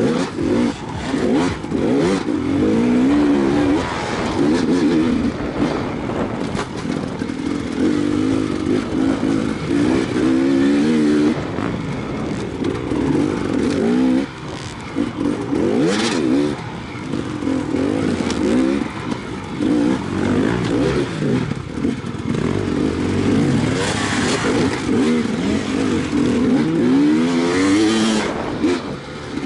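Enduro dirt bike engine heard up close from an on-board camera, revving up and dropping off again and again as the rider works the throttle and gears over the rough dirt track, with wind and rattle over the top.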